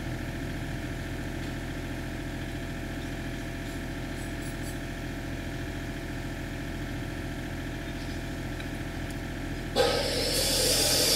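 Mini excavator's diesel engine idling steadily. About ten seconds in a sudden, louder rushing noise starts and keeps going.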